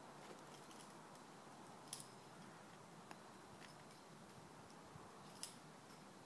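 Near silence: a faint steady hiss with a few short sharp clicks, the two loudest about two seconds in and near the end.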